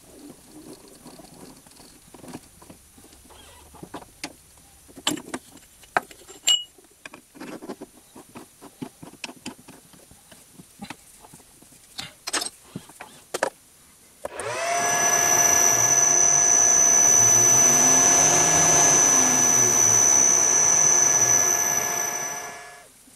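Scattered metallic clicks and taps, then a metal lathe starts about two-thirds of the way in. Its spindle runs steadily with a high gear whine and fades out near the end.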